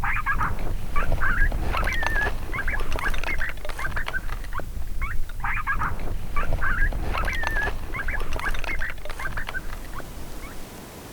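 Electronic predator call playing a prey-distress recording: high, squeaky chirps and squeals, the same phrase repeating about every five seconds, fading out near the end. A low rumble runs underneath.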